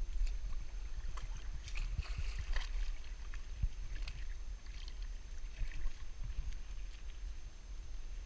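Wind rumbling on the microphone, with water lapping against the jetty rocks and scattered small clicks and rustles from the angler's handling.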